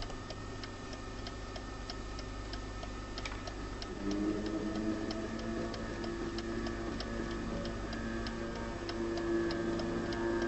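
A clock ticking steadily, about two ticks a second, with low sustained tones joining about four seconds in and swelling toward the end.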